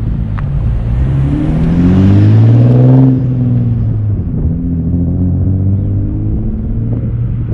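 Turbocharged Infiniti G35's 3.5-litre V6 running: one rev climbs over about two seconds, drops back about three seconds in, and the engine settles to a steady idle.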